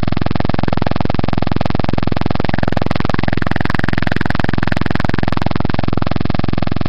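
A loud, steady buzz that does not change in level, with a fainter, shifting sound over it in the middle.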